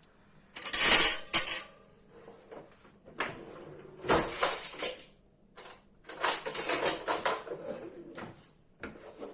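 Dishes and utensils clattering in bursts as kitchenware is handled, with sharp knocks and scrapes.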